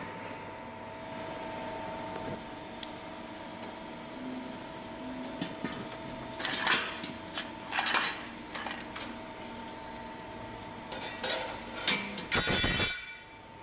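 Press brake machine humming steadily while metal clanks and clatters several times, the loudest clatter near the end, as of sheet metal being handled and bent.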